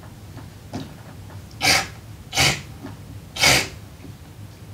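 A rakugo storyteller's mouth-made noodle slurps, miming eating soba: three loud, breathy slurps, each about a third of a second and about a second apart.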